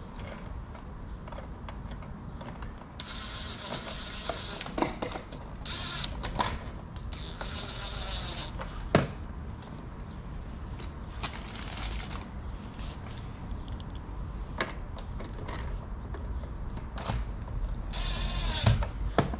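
Cordless drill-driver running in several short bursts, driving the screws that fix a cat flap's mounting ring. Sharp clicks and knocks from handling the plastic flap come between the bursts.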